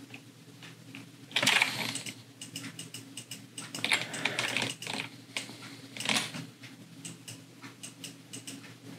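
Computer keyboard and mouse clicks: scattered keystrokes, with three louder bursts of clatter about one and a half, four and six seconds in.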